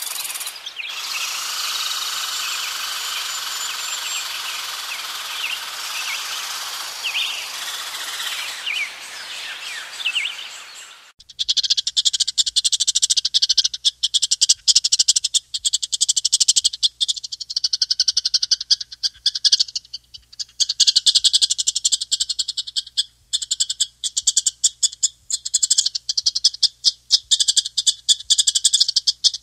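Chipmunk calling: dense trains of very rapid, high-pitched chips in bouts of a few seconds separated by short pauses. These follow a stretch of steady hiss with scattered thin chirps that takes up the first third.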